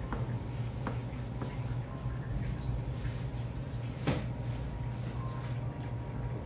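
A knife working a salmon fillet on a plastic cutting board, giving a few light clicks and one sharper knock about four seconds in, over a steady low hum.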